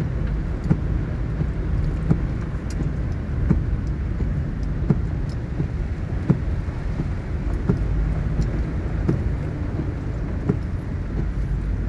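Inside a car driving slowly through floodwater: a steady low rumble from the engine and tyres, with scattered sharp taps at irregular intervals.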